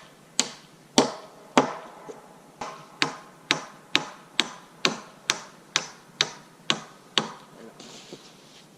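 Hammer driving nails into wood with steady, even blows, about two a second, each with a short ring; the blows stop about a second and a half before the end.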